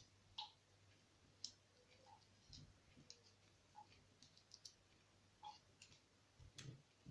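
Faint, irregular light clicks of small metal parts being handled while an ignition lock cylinder is taken apart: the wafers and springs ticking against the cylinder and tools, over a low steady hum.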